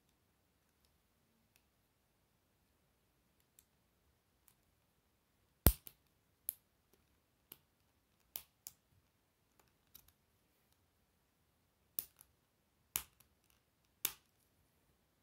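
K'Nex plastic rods and connectors clicking as they are snapped together and handled. A dozen or so short sharp clicks come at irregular intervals, the loudest about a third of the way in.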